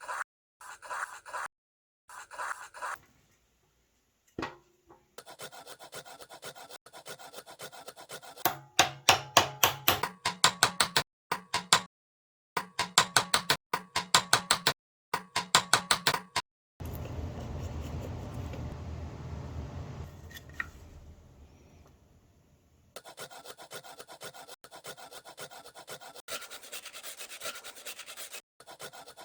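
Hand tools working a wooden post in runs of regular back-and-forth strokes, broken off by abrupt cuts. In the middle, a steady noise fades away over several seconds.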